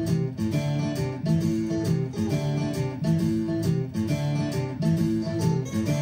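Plucked guitar music played back through a pair of KLH Model 3 speakers in a living room, with no subwoofer connected; the track is a compressed, royalty-free stream from YouTube.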